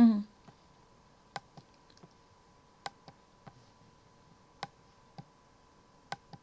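A brief falling tone right at the start, then sparse, sharp clicks at irregular intervals, often in pairs, over a faint steady electrical hum.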